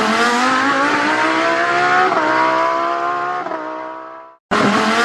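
Race car engine sound effect accelerating through the gears: the pitch climbs, drops at a shift about two seconds in and again about three and a half seconds in, then fades out. It cuts back in near the end, starting low and climbing again.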